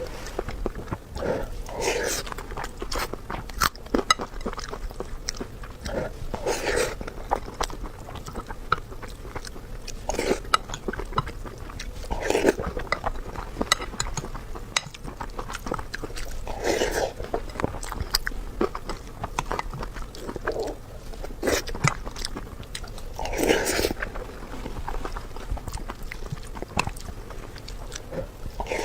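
Close-up eating sounds: a person chewing and biting food, with many small crunchy clicks and a louder bite every few seconds.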